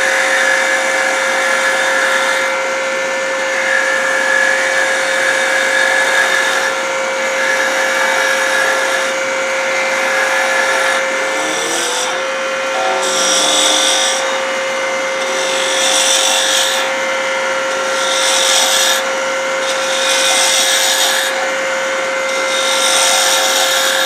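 Wood lathe running with a steady motor whine while a 3/8-inch spindle gouge cuts a slim spindle, tapering a bead. The cut comes as a hiss repeated every two to three seconds, one for each pass of the gouge. About halfway through the whine dips briefly and comes back up.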